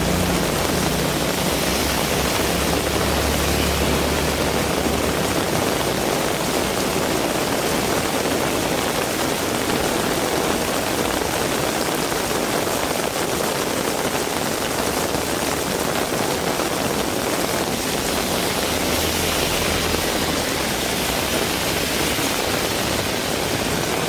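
Heavy rain pouring steadily. A vehicle engine hums low underneath for the first few seconds and comes back more faintly later on and near the end.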